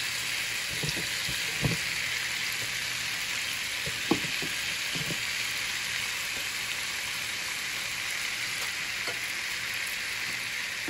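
Minced garlic sizzling in foaming melted butter in a nonstick frying pan: a steady hiss, with a few light knocks, the loudest about a second and a half in and again about four seconds in.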